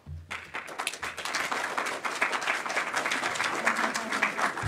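Audience applauding, the clapping building over the first second and then keeping up steadily.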